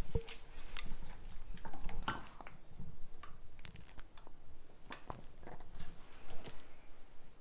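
A Maltipoo eating dog noodles from a bowl: irregular wet chewing with scattered light clicks against the dish.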